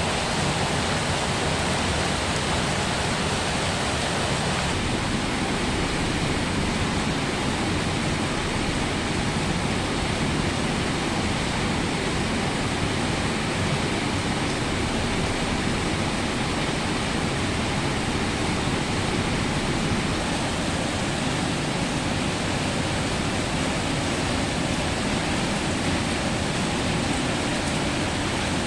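Steady heavy rain falling, a dense even hiss with no distinct drops or breaks.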